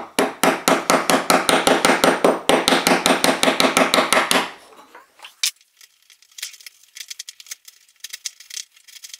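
Narrow bench chisel paring a mitre in hard bamboo flooring, taking a little off at a time: a fast, even run of scraping clicks, about eight a second, for the first four seconds or so. It then drops to quieter, scattered scrapes and ticks as small shavings come away.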